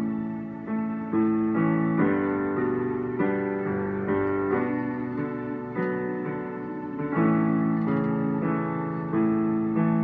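Piano or electric keyboard playing slow, sustained chords that change every second or two.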